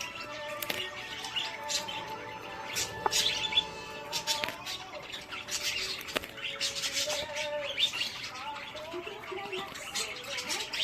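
Birds chirping and calling again and again, in short high notes, over a few faint steady tones.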